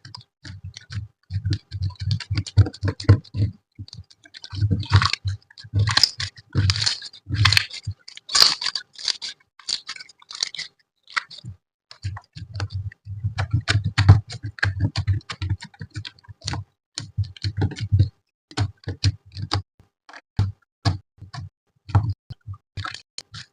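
Slime being squeezed, poked and stretched by hand: a dense, irregular run of small sticky clicks and pops, some with a soft low thud, with louder crackling about 5 to 9 seconds in.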